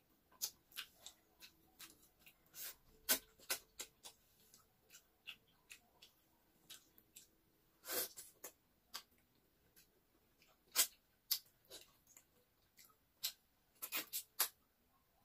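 Close-miked wet mouth sounds of a person eating a ripe mango slice: irregular lip smacks, sucks and slurps as the flesh is bitten and sucked from the fruit.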